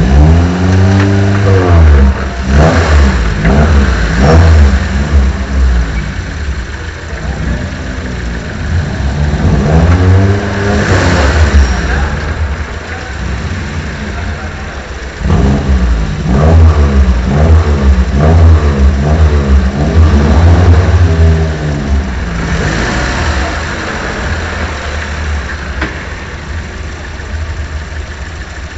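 Suzuki Swift cup race car engine being blipped: revs rise and fall in quick throttle stabs in three bunches, settling back to idle between them and near the end.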